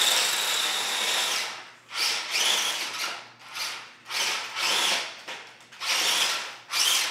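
Grave Digger Trax toy RC monster truck's small electric drive motors and gearing whirring with a high whine as it is driven. There is one longer run at first, then repeated short spurts of a second or less with brief pauses between them.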